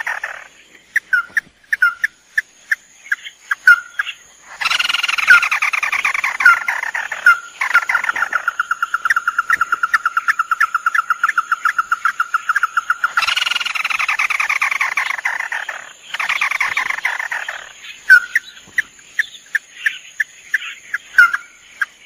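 Red-eyed crake (tikusan mata merah) lure calls: several harsh, descending rattling trills, and a fast run of repeated notes held for about five seconds in the middle, with short single notes scattered between.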